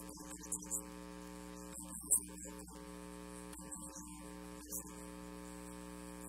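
Steady electrical mains hum with a buzz of evenly spaced overtones, with a few brief faint hissy flecks.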